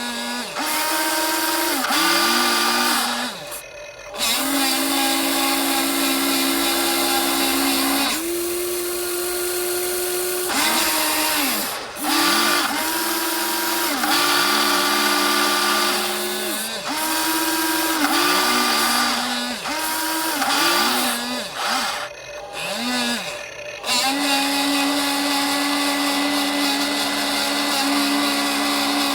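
Electric motors of a radio-controlled metal excavator whining as it works, starting and stopping over and over in stretches of one to four seconds, the pitch falling away each time a motor stops.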